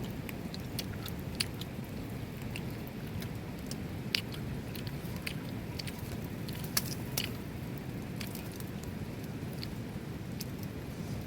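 Someone eating Maggi noodles close to the microphone: chewing with sharp crunchy clicks at irregular intervals, over a steady low hiss.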